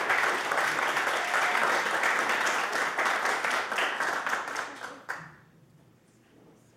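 Audience applauding, dying away about five seconds in, with a single knock as it ends.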